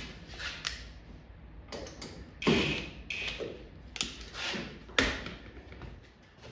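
Hands working rubber weatherstripping into place along a car's cowl panel: rustling and scraping with about five sharp knocks and clacks, the loudest about two and a half and five seconds in.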